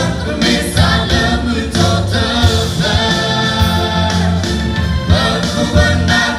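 A mixed group of young male and female singers singing together through handheld microphones and a PA, over sustained low bass notes.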